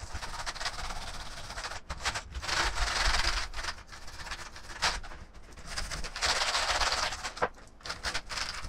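A brush scrubbing a Razer keyboard in bursts of rapid strokes, with small plastic clicks of the keys and case between them.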